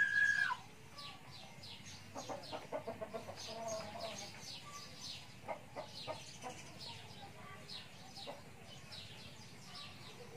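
Chickens: a rooster's held crow ends with a falling note in the first half-second, then short hen clucks follow about two to four seconds in. Small birds chirp throughout.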